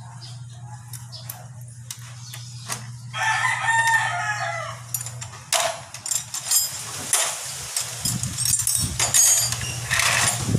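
A rooster crows once, about three seconds in, a call lasting roughly two seconds. A low steady hum and scattered light clicks run underneath.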